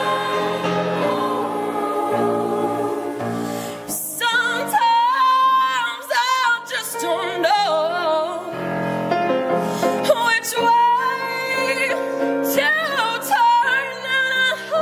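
A choir singing held chords. About four seconds in, a solo voice with strong vibrato enters and sings over the choir's sustained harmony.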